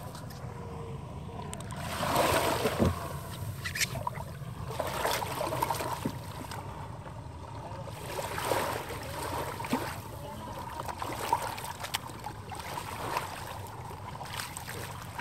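Small waves washing up on a sandy beach, swelling and easing every few seconds.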